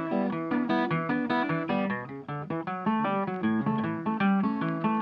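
Background music: a quick, even run of plucked guitar notes over lower held notes.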